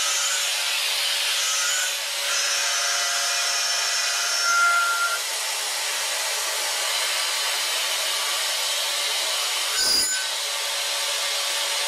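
Solid end mill trochoidal-milling a titanium blisk on a CNC machining centre, cooled through the tool with liquid nitrogen and minimum quantity lubrication. It makes a steady cutting hiss with high whining tones that shift in pitch, and there is a brief louder burst about ten seconds in.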